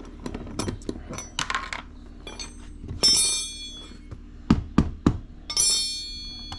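Small metal hand tools clinking against each other with a ringing tone, twice, and three dull knocks in between, as the generator's front maintenance panel is worked with its supplied 8 mm wrench.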